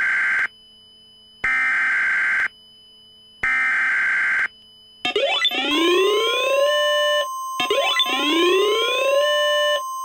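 Emergency Alert System SAME header data sent three times: harsh buzzing data bursts of about a second each with short gaps. From about five seconds in, an alarm starts: a rising siren-like sweep repeating about every two and a half seconds over a steady single-pitch alert tone, the NOAA Weather Radio warning alarm for a civil danger warning.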